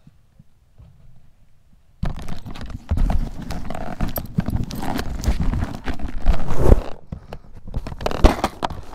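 Loud crackling and knocking on the microphone that starts abruptly about two seconds in, with irregular sharp clicks over rough noise. This is the crackling from a poorly set-up recording rig.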